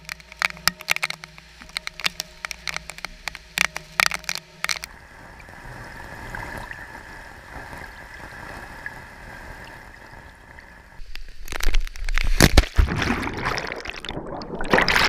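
Many sharp ticks of rain drops hitting a waterproof camera, then a muffled, steady underwater hiss once it is submerged in a pool. From about eleven seconds in come loud bubbling and sloshing as a swimmer stirs the water around the camera.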